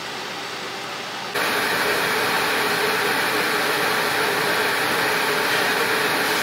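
Steady outdoor street ambience, an even wash of noise like distant traffic, with no single sound standing out. It jumps louder a little over a second in and then holds steady.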